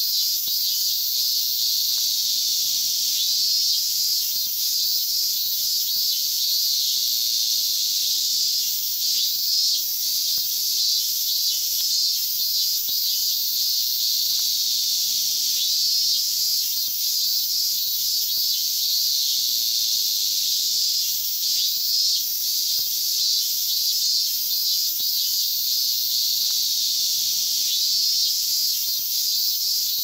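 Cicadas singing: a steady, high-pitched buzzing drone that does not break.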